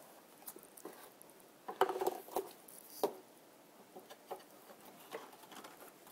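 Small clicks and light knocks of a glue bottle and a wooden cleat being handled while a bead of wood glue is laid along the cleat, busiest about two seconds in.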